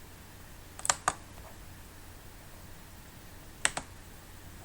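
Sharp clicks from a computer being operated: two quick clicks about a second in and a single click near the end, over a low steady room hum.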